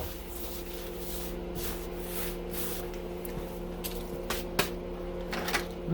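Steady electrical hum with light handling noise of circuit-breaker parts, and a few sharp clicks of small metal pieces near the end.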